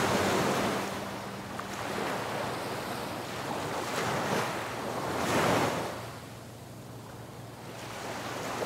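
Ocean surf washing on the beach, swelling and fading as waves break, loudest about five seconds in, with some wind on the microphone.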